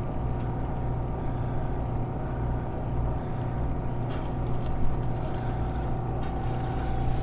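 A boat's motor running steadily with an even low hum.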